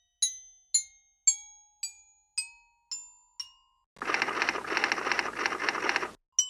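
Intro music: a slow melody of single struck, bell-like glockenspiel tones, about two a second, each ringing out and fading. About four seconds in, the notes give way to two seconds of a dense, noisy sound, and the notes come back near the end.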